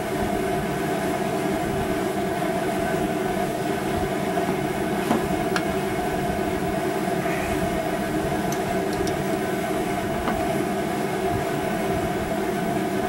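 Steady mechanical hum from running shop equipment, unchanged throughout, with a few faint light metallic clicks from the piston, wrist pin and spiral locks being handled, around five seconds in and again near ten.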